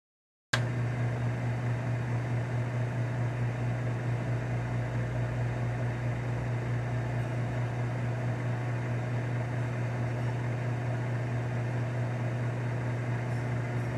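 Steady electric machinery hum, a strong low buzz with overtones, starting abruptly about half a second in and holding an even level.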